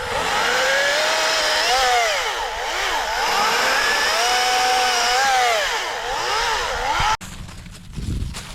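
Atlas 40-volt brushless battery chainsaw running with a motor whine whose pitch dips and recovers several times as the chain bogs and frees in the cut. The sound cuts off abruptly about seven seconds in.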